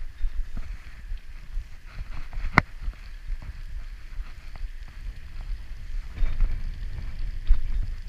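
Bicycle riding over wet, broken asphalt: a steady low rumble of wind on the microphone and road, a faint tyre hiss, and scattered small rattles and clicks from the bike. About two and a half seconds in comes one sharp click with a brief ring.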